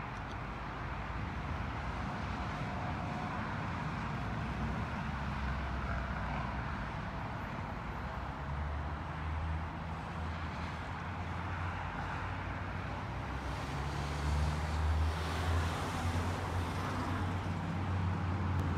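Steady low rumble of motor vehicles, which grows louder in the second half.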